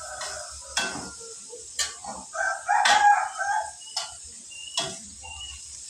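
Chickens clucking and a rooster crowing, loudest about halfway through, over sharp clinks of a metal spatula against the pan roughly once a second as food is stirred.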